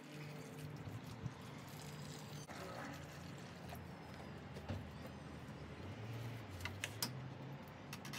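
Water pouring from a watering can into a plastic planter saucer over a steady low hum, then a few sharp clicks and knocks in the second half as a small electric water pump is set into the wet saucer.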